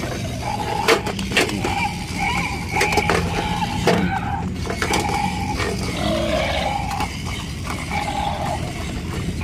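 Battery-powered toy crocodile and toy gorilla running: small gear motors whirring and ratcheting, with sharp plastic clicks and taps on an aluminium tray.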